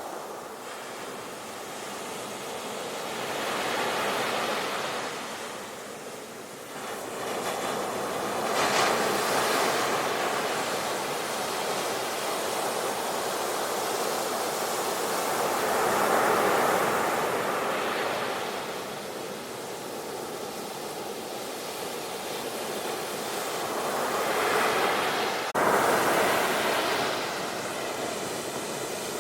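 Sea waves breaking and washing up a shore, the rush of surf swelling and ebbing every five to eight seconds, with a brief break in the sound about 25 seconds in.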